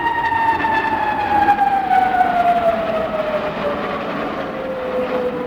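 Jet engines of Aermacchi MB-339 aerobatic jets flying past: a loud whine with overtones, sliding steadily down in pitch as the aircraft go by and away, over a broad rushing roar.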